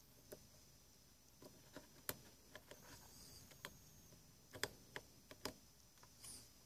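Faint, scattered clicks and ticks of a screwdriver and small metal parts as a little screw is driven into the cover of a turntable's small DC motor, with the sharpest clicks about four and a half to five and a half seconds in.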